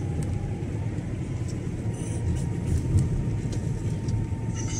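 Steady low rumble of a car being driven, engine and tyre noise together.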